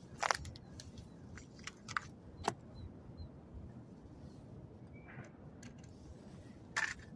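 Scattered small crunches, rustles and sharp clicks of an angler handling a freshly caught small roach at the water's edge, unhooking it for release.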